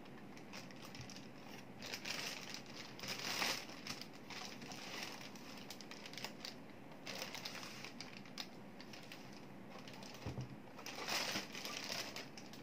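Thin clear plastic bag crinkling and rustling in irregular bursts as it is pulled off a label printer and bunched up by hand, with one dull thump about ten seconds in.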